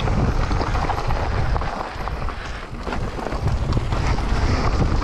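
Wind buffeting the microphone and mountain bike tyres rolling fast over a loose dirt and gravel trail, with many small rattles and clicks from the bike and stones. It eases briefly about two seconds in.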